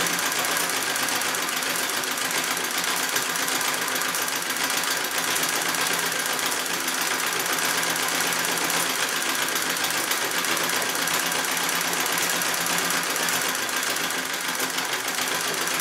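Singer 66 "Red Eye" treadle sewing machine running steadily, its needle stitching through quilt layers in a rapid, even clatter.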